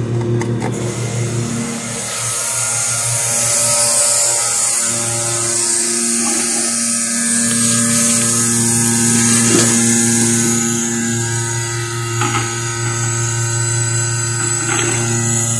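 Milking machine's electric vacuum pump running with a steady hum. About two seconds in, a loud hiss of rushing air joins it, as the vacuum draws air through the hoses and claw.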